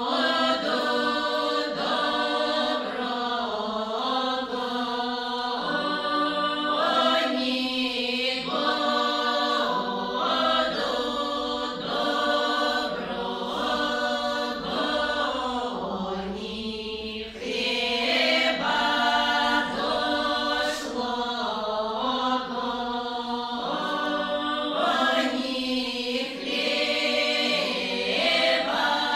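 A women's folk ensemble singing a Russian folk song unaccompanied, several voices together in sustained sung phrases, with a brief breath-break about seventeen seconds in.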